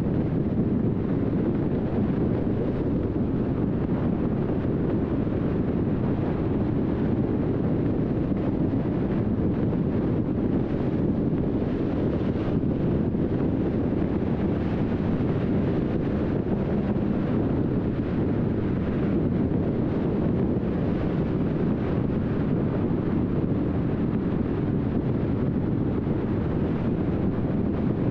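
Steady road noise of a car driving at speed: an even low rumble of tyres on the road surface and engine, with no distinct events.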